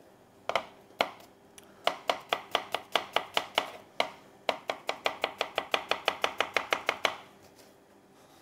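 Kitchen knife slicing a radish into thin rounds on a plastic chopping board: a couple of single cuts, then quick, even strokes about five a second with a short break partway, stopping near the end.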